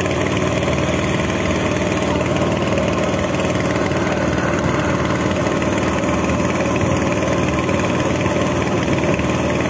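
Small river boat's engine running steadily under way, holding an even pitch throughout.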